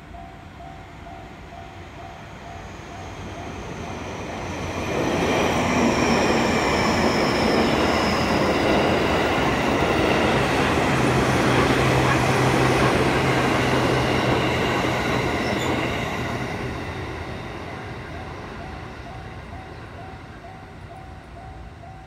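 An electric commuter train passes over a level crossing: its wheel and track noise builds over a few seconds, stays loud for about ten seconds with a high whine that falls in pitch, then fades away. The level-crossing warning bell dings in a steady repeating pattern before and after the train, drowned out while it passes.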